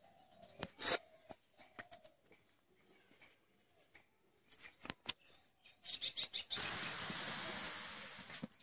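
Scattered crackles and rustles, then about six and a half seconds in a loud, steady hiss that lasts nearly two seconds and stops just before the end: a fire of dry sticks flaring in a clay mud stove under an aluminium pot of milk coming to the boil.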